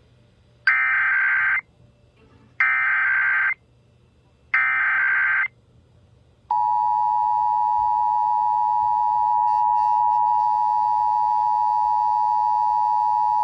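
Emergency Alert System test received on an FM radio: the SAME header data sent three times as one-second bursts of digital warbling, about two seconds apart, then the two-tone EAS attention signal starts about six and a half seconds in and holds steady.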